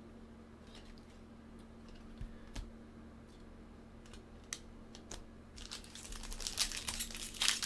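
A few light clicks of card handling, then about three-quarters of the way in the crinkle of a foil trading-card pack wrapper being handled starts up and grows louder.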